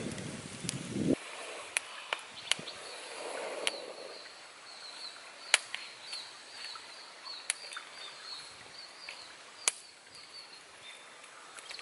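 Small wood fire crackling with scattered sharp single pops while corn cobs roast in it. A rustling noise fills the first second, and a faint high chirping runs through the rest.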